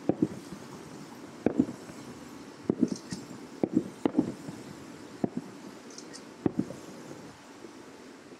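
Aerial fireworks shells bursting about two miles away: a string of irregular, muffled booms, about nine in eight seconds, some in quick pairs, over a steady low background rumble.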